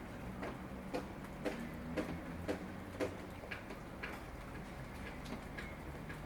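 Rainwater dripping: single drops land in a steady rhythm, about two a second, growing fainter after about four seconds, over a faint hiss of rain.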